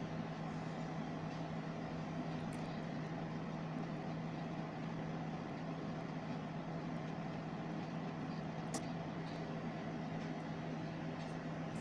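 Steady low hum and hiss, with a couple of faint ticks from small wires being twisted together by hand.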